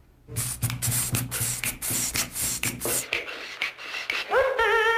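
A man breaking into a fit of laughter in rapid, breathy, wheezing bursts. About four seconds in, it turns into a high, wavering, voiced sound that steps up and down in pitch.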